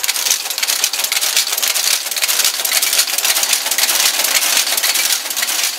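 Monotype composition caster running and casting type: a steady, rapid clatter of its mechanism.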